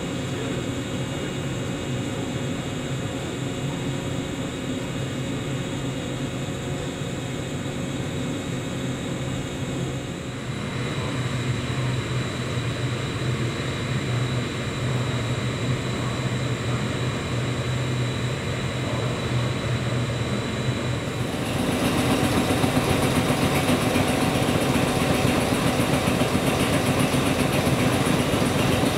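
Underfloor equipment of a stationary Tobu 6050 series electric train running: a steady hum with fixed high whining tones. The sound changes abruptly twice and is louder over the last quarter.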